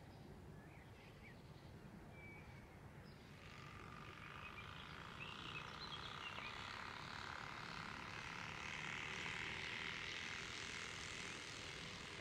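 Turbospoke bicycle exhaust buzzing as the bicycle rides toward the camera, its plastic sound card flapping against the wheel's spokes. The buzz comes in about a third of the way through and grows steadily louder.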